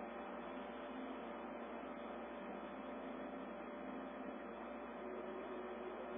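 Steady hiss with a low hum and a faint, thin steady tone; a second, lower tone joins about five seconds in.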